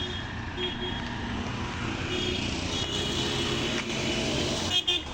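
Road noise of a moving vehicle, a steady low rumble, with several short steady-pitched horn toots from traffic. Near the end there is a brief loud knock followed by a moment's dropout.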